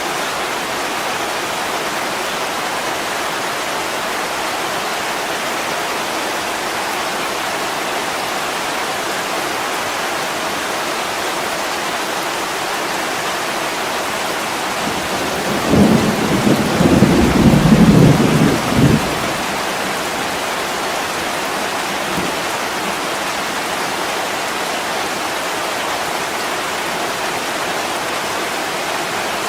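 Steady heavy rain hissing against a window, with a roll of thunder rumbling low for about three seconds midway through.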